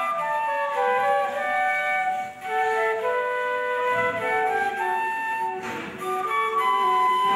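Flute music: a melody of held notes moving step by step, with a brief dip in loudness a little after two seconds in.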